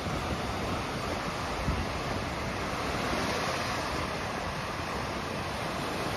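Small ocean waves breaking over rocks and washing up a sandy beach in a steady wash of surf, with some wind rumbling on the microphone.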